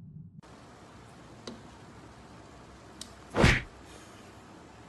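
Kitchen handling noise: a couple of faint clicks, then one short, loud clatter about three and a half seconds in as dough balls are taken off a plastic tray over a colander.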